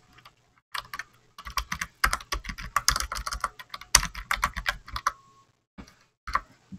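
Computer keyboard typing: a quick run of keystrokes, then a few separate key presses near the end.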